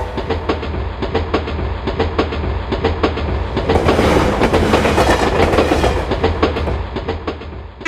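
Train passing, its wheels clicking rapidly over the rail joints above a steady low rumble. It grows louder and fuller in the middle and eases off near the end.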